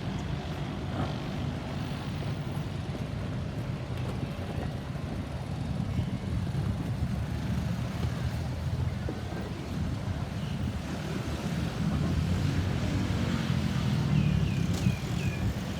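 Steady low rumble of road traffic with wind buffeting the microphone, growing slightly louder after about twelve seconds. Four short high chirps come in quick succession near the end.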